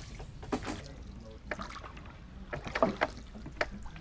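Wooden rowing boat on a canal: scattered hollow knocks and thuds against its planking, the loudest a little under three seconds in, over a low steady rumble.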